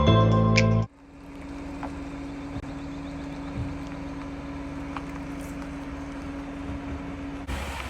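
Background music cuts off about a second in, giving way to a camper van driving: steady road and engine noise with a constant low hum. The hiss grows brighter near the end.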